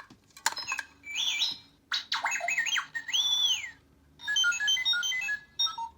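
R2-D2 Lights and Sound Funko Pop's sound chip playing R2-D2 droid beeps and whistles through its small speaker: a string of electronic chirps and warbles, whistles that glide up and down, and near the end a quick run of stepped beeps, with short pauses between phrases. A click sounds at the very start.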